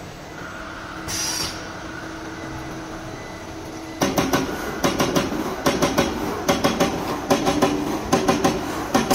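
CNC turret punch press running: a steady machine hum with a brief hiss of air about a second in, then from about four seconds in rapid runs of sharp punch strokes in quick clusters.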